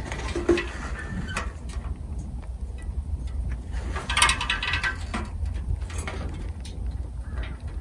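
Stovepipe damper being turned by its handle: scattered metal clicks and a short squeak about four seconds in, over a steady low rumble.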